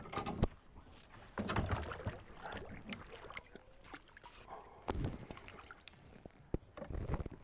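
Knocks against a kayak's hull and bursts of water splashing, irregular and a few seconds apart, as someone moves about in a kayak.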